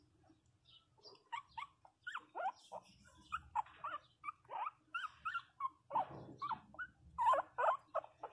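Pinscher puppy about four weeks old whimpering: a quick series of short, high cries that rise and fall in pitch, several a second.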